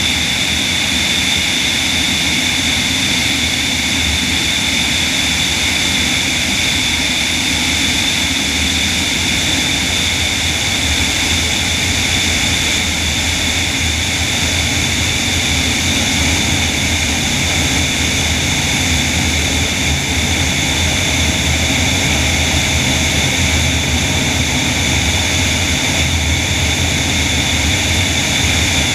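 An electric-powered DHC-2 Beaver floatplane in level flight, heard from a camera under its wing: a steady propeller and airflow rush with a constant high whine over it.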